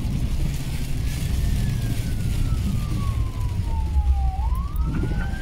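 Steady low rumble of a car driving on a wet road, heard inside the cabin, with an emergency vehicle siren wailing: from about a second and a half in its pitch falls slowly, then rises again near the end.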